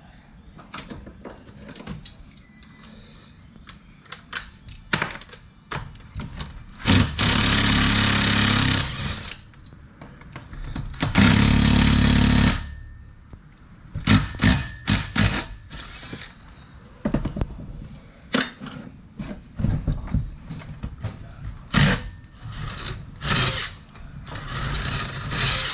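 A handheld power tool runs in two steady bursts of about two seconds each, a few seconds apart. Between and around them come many sharp clicks and knocks of tools and metal parts being handled.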